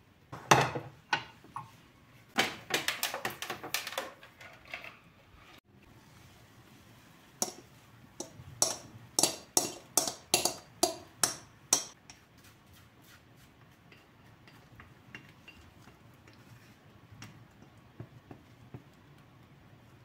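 A wire whisk clinking against a glass bowl as cake batter is beaten by hand, in quick runs of clicks. From about seven seconds in, sharp clinks of a utensil on glass come about two a second while the batter is poured into a glass baking dish, then only faint taps.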